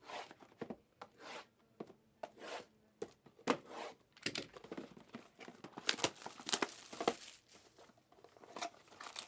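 Trading card box and pack wrappers being torn open and crinkled: a continuous run of short, irregular ripping and crackling noises.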